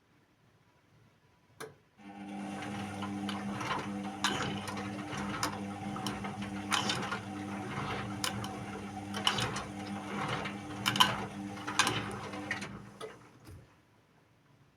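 Indesit WIU 81 washing machine turning its drum during the wash. A single click comes first, then the motor runs with a steady hum and irregular clicks and knocks for about eleven seconds before it stops.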